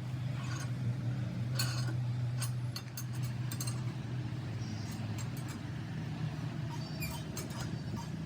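A steady low machine hum with scattered sharp metallic clinks and taps, several in the first half and a cluster near the end.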